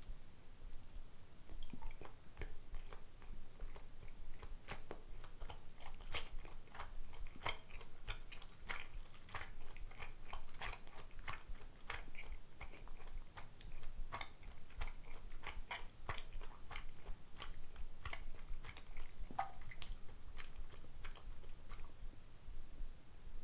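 Chewing soft, sticky rice dumplings (soy-sauce dango): a steady run of small wet clicks and smacks, several a second.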